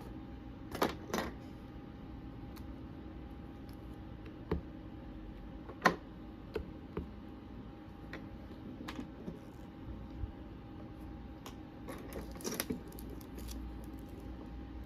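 Scattered sharp clicks and light knocks of small hard items being handled, the loudest about a second in, near six seconds, and a cluster near the end, over a faint steady hum.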